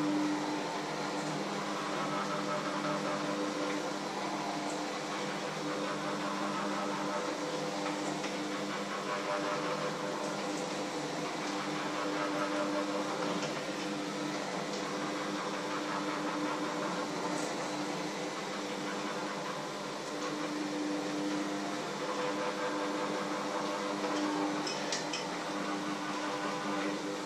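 Electric hand mixer running steadily in a bowl, a constant motor hum.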